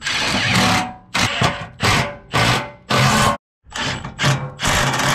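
Milwaukee M18 Fuel cordless impact driver running in the 17 mm factory bolts that hold a steel skid plate, in a quick string of about nine short bursts, each a second or less.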